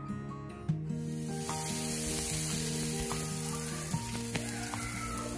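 Marinated chicken quarters sizzling on a charcoal barbecue grill: a steady hiss of fat and juices cooking over the coals, starting about a second in, under background guitar music.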